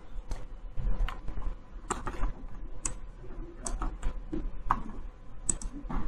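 Irregular clicks and taps of a computer keyboard and mouse.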